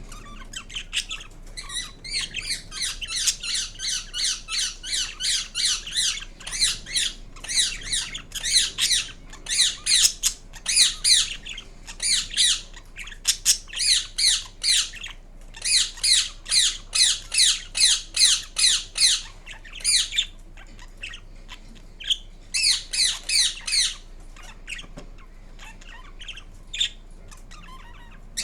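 Indian ringneck parakeet giving runs of rapid, shrill squawks, about three to four calls a second, broken by short pauses, with a few scattered calls in the quieter stretch near the end.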